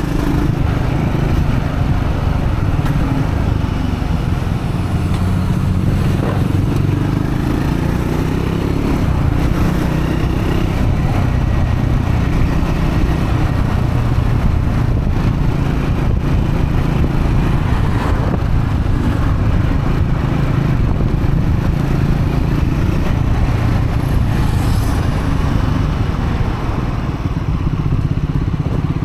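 Triumph Scrambler 400X's single-cylinder engine running under way, a new engine being run in, its pitch drifting a little up and down with the throttle.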